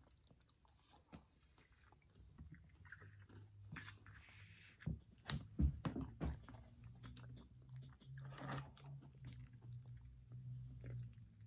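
A person chewing a mouthful of soft chicken lo mein noodles, faint wet mouth sounds with a few sharper clicks around the middle.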